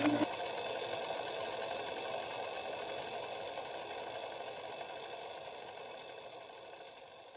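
A steady hissing drone with a few faint held tones, fading out slowly.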